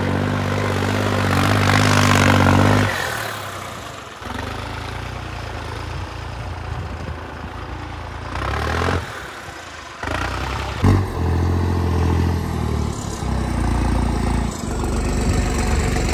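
Vehicle engine running, first at a steady idle and then in several short cut-together stretches that change abruptly, with a sharp knock about eleven seconds in.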